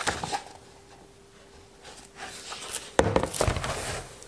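Pages of a large-format comic book being flipped and handled: paper rustling and riffling, loudest from about three seconds in, where it starts with a sharp knock. A faint steady hum runs underneath.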